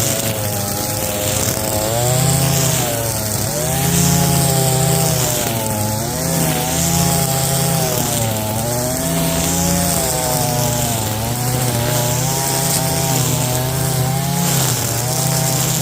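Small engine of lawn care equipment running continuously. Its pitch dips and recovers every two seconds or so, as if under changing load.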